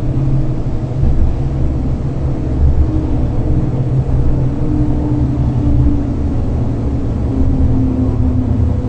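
Ride noise inside a moving electric tram: a steady low rumble with a faint whine that drifts slightly in pitch.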